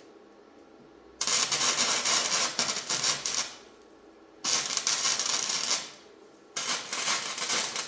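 Electric arc welding on steel: three welds, each a dense crackle lasting one to two seconds, with short pauses between them.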